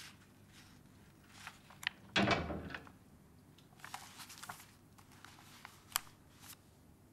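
A few faint clicks and knocks in a quiet room, with one louder, longer thud about two seconds in.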